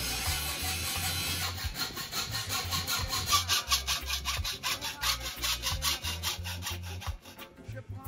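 Hand hacksaw cutting through square steel tube, quick regular back-and-forth strokes that start about a second and a half in and stop near the end.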